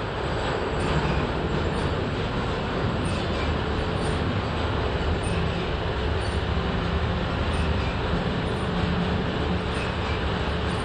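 Vintage Märklin O-gauge tinplate toy train running on tinplate track, a steady rolling rattle and hum.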